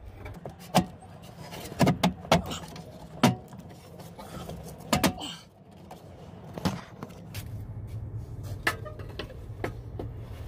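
Irregular metallic clanks and knocks as a metal bracket is shifted and pushed against the truck's dash frame while being lined up on its mounting studs. About seven seconds in, a steady low hum comes in beneath the knocks.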